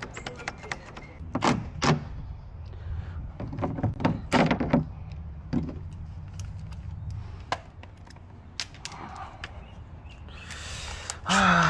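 Irregular clicks and knocks of hand tools and lock parts on a vehicle door during lock cylinder work, with a few louder thunks and a longer, louder noise near the end.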